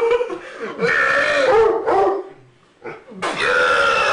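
A man belching loudly: long, drawn-out burps one after another, with a short quiet gap a little over two seconds in before the next long burp starts.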